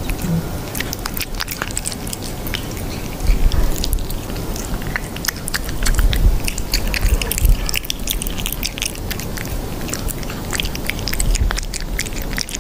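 Cat chewing and biting a piece of raw salmon: a run of quick, wet mouth clicks and smacks, close to the microphone.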